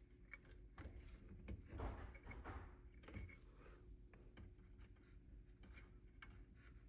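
Near silence with faint scattered clicks and light rustling of hand work, as a capacitor's wire lead is bent into a hook, over a low steady hum.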